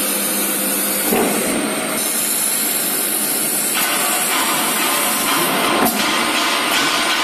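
SBT-JV130 glass drilling machine running with a steady hiss. From about four seconds in, the grinding gets fuller as the drill head is lowered and the bit cuts into a round glass disc.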